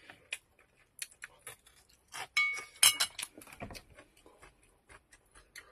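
Scattered clicks and clinks of tableware: wooden chopsticks against a stainless-steel dish, set down on the table, and a glass tea jar picked up. One clink near the middle rings briefly.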